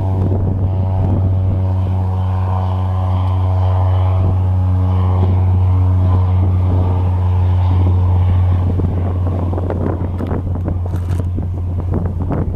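Cessna 208 Caravan's PT6A turboprop engine and propeller running with a steady low drone, which fades after about eight seconds. Wind noise on the microphone rises near the end.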